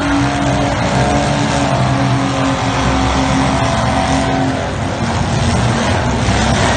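Several demolition derby cars' engines running and revving together in a loud, continuous din, with some tyre noise.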